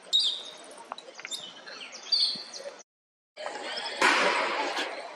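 Short high chirping calls over a faint outdoor hiss. The sound cuts to total silence for about half a second near the middle. A louder burst of rushing noise follows about a second later.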